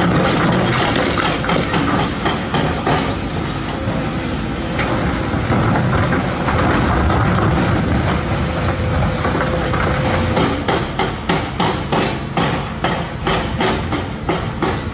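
Crawler excavator at work: its diesel engine runs loudly under load. From about ten seconds in, a steady metallic clanking comes about three times a second.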